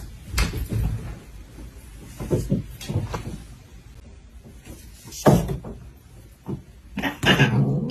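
A series of irregular knocks and bumps, the loudest about five seconds in, with a longer rattling stretch near the end.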